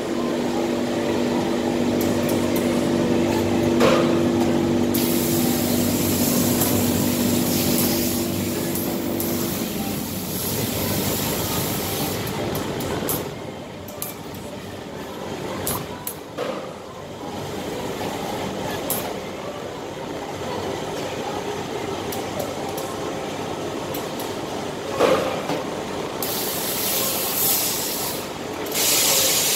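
Industrial steam iron hissing in bursts as it presses fabric on a pressing table. The hiss is strong at first, fades in the middle and comes back strongly near the end, with a steady machine hum during the first third and a few short knocks.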